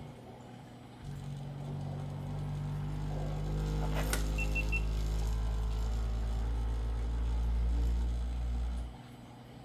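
Bambu Lab A1 Mini 3D printer's stepper motors buzzing through its XY mechanical-mode (resonance) sweep, part of its automatic calibration before a print. A low hum of several steady tones starts about a second in and grows louder, with one sharp click about four seconds in, then cuts off suddenly near the end.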